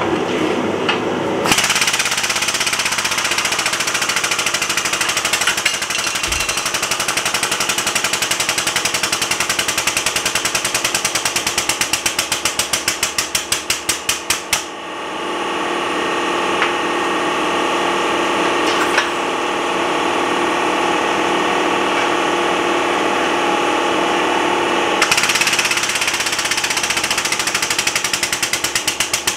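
Air-over-hydraulic pump of a shop press chattering in a fast, even pulse as the ram flattens a red-hot steel plate. The pulses slow near the middle as the press comes under load, give way to a steadier hiss for about ten seconds, and the fast chatter starts again near the end.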